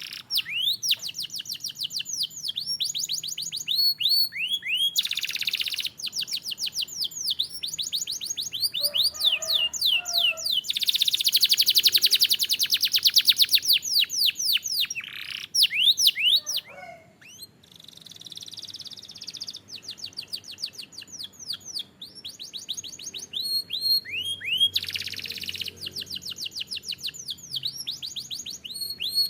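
Domestic canary singing: fast runs of repeated high notes, each sliding downward, joined into trills. About halfway through comes a long, very rapid rolling trill lasting a few seconds.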